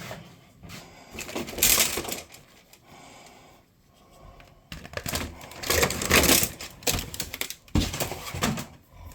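Rummaging and handling of DIY electrical supplies: irregular rustling with light clattering and knocks, in two bouts, a short one about a second and a half in and a longer one from about halfway through.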